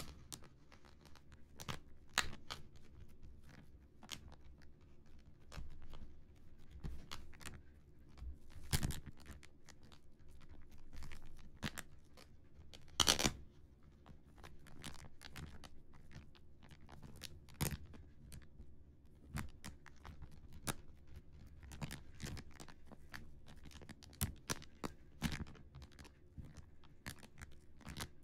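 Fingertips tapping and scratching on the textured surface of a round relief picture of the Earth: soft, irregular taps and scrapes, with a few louder scrapes, the loudest about 13 seconds in.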